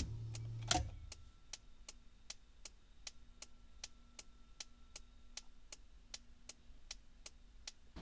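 Car turn-signal flasher clicking steadily, a little under three clicks a second: the indicators are flashing because the car alarm was set off by an open door. A click and a short low hum come first, in the opening second.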